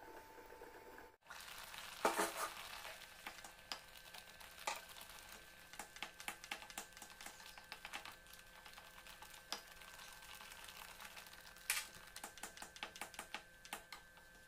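Thick spinach gravy spattering and crackling as it cooks in a nonstick pan, with a spatula stirring and scraping through it; a few louder knocks stand out, the loudest about two seconds in.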